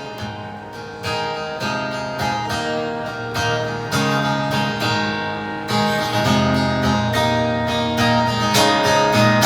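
Acoustic guitar strumming chords, playing the instrumental ending of the song after the last sung line.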